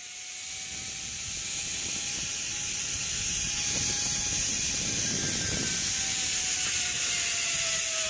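Zip-line trolley running along the steel cable: a steady hiss with a thin whine that drifts slowly lower in pitch as the rider slows toward the platform.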